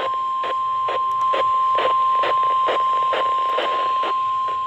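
NOAA Weather Radio warning alarm tone: a single steady tone of about 1050 Hz heard over a radio receiver, the alert signal that comes before a warning is read. Faint static crackles about twice a second run under it.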